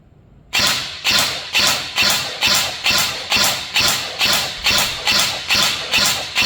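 INF M4 14.5-inch electric airsoft rifle (AEG) firing single shots in a steady rhythm, about two a second, starting about half a second in; about thirteen shots. The rifle is being test-fired after a repair to its firing circuit.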